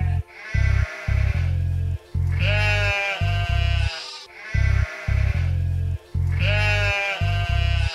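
Background music with a repeating bass line, over which sheep bleat in long quavering calls about every two seconds, four times.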